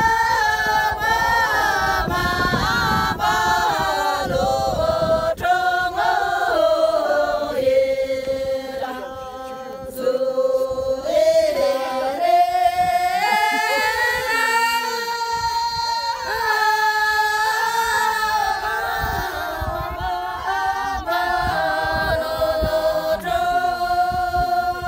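A group of women singing a chant-like traditional song together in unison, without instruments, with long held notes that move slowly from one pitch to the next.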